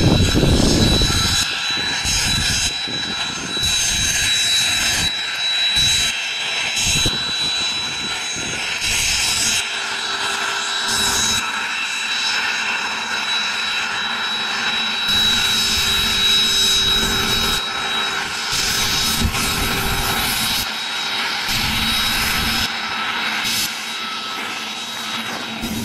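Small twin-turbofan business jet, a Beechcraft Premier I, taxiing at low power: a steady high whine over a constant rush of jet noise.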